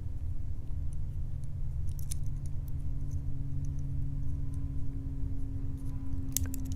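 A few light metallic clinks, a cluster about two seconds in and another near the end, from a padlock and small tools being handled on the bench, over a steady low hum.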